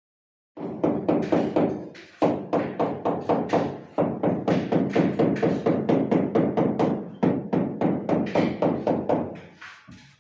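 Rubber mallet tapping a large porcelain tile, rapid, even thuds about four to five a second with brief pauses, bedding the tile into its adhesive.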